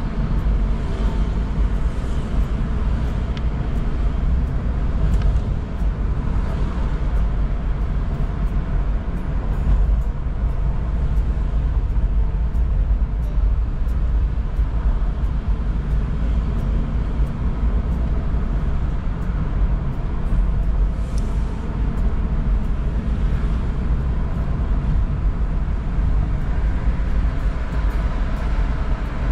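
Steady low engine and road rumble of a Toyota car, heard from inside the cabin while it is driven.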